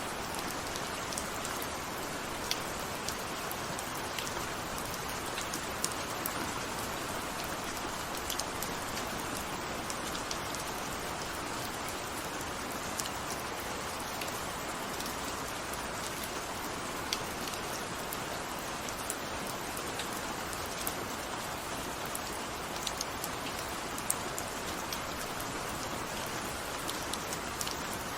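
Steady rain falling, an even hiss with scattered sharp ticks of single drops striking a surface.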